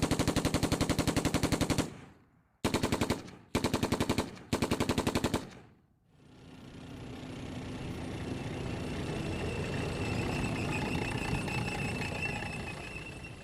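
Rapid automatic gunfire in a sound-effect demo: one long burst, then three short bursts in quick succession. About a second later comes a long rush of noise that swells and fades over roughly eight seconds.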